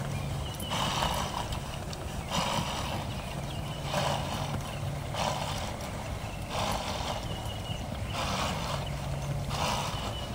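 A horse being ridden at a short, collected gait on soft dirt. A rhythmic rushing noise comes back about every second and a half, over a faint low hum.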